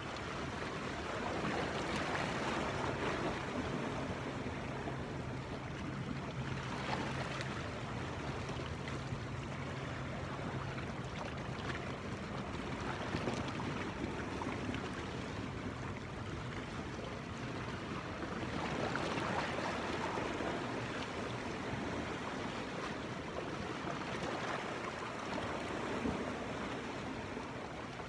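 Sea water washing and splashing against rocks, the noise swelling and ebbing every five or six seconds.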